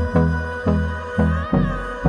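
Background music with a steady beat, about two beats a second, over sustained bass notes.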